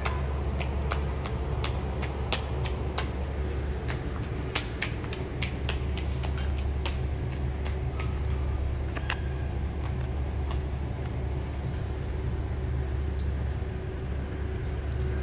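Small footsteps tapping on a hard tiled floor, a toddler's shoes, irregular and several a second at first, thinning out in the second half. Under them runs a steady low hum.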